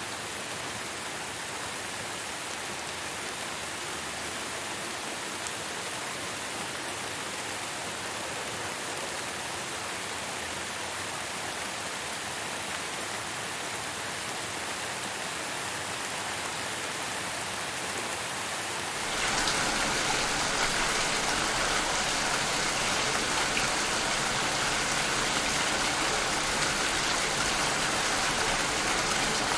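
Steady rain falling, an even hiss of drops; about two-thirds of the way through it jumps abruptly to a louder, heavier, fuller rain.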